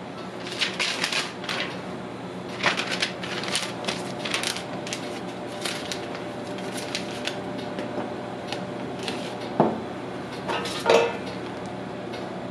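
Gloved hands rolling a crepe on a plastic-covered counter: bursts of rustling and crinkling, then a couple of sharper knocks near the end, over a steady low hum.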